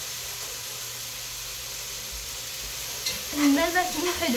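Steady background hiss, with a voice speaking briefly about three seconds in.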